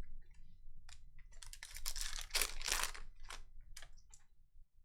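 Trading cards being handled: a run of light clicks and rustling as cards are flipped and stacked, busiest about two to three seconds in.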